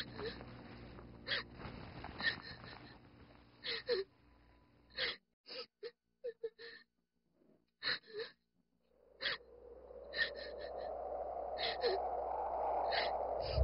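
A woman sobbing in short, sharp gasping breaths at irregular intervals, with near-silent gaps between them around the middle. In the last few seconds a rushing noise swells up beneath the gasps.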